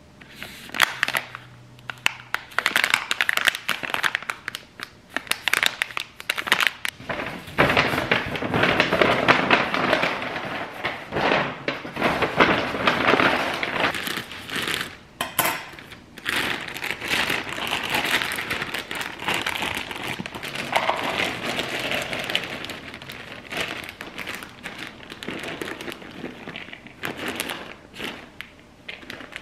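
Rustling and crinkling of packaging being handled, with many scattered clicks and light knocks throughout.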